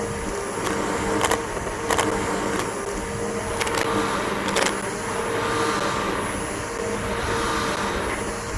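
Bissell BigGreen PowerForce upright vacuum cleaner running over grass, its motor giving a steady whine, with several sharp clicks in the first few seconds.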